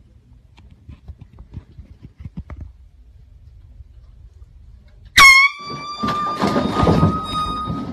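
Faint rustling and soft knocks, then about five seconds in a loud air horn blast that dips and settles on one steady tone, held to the end, with thumping and clatter under it as the man jumps.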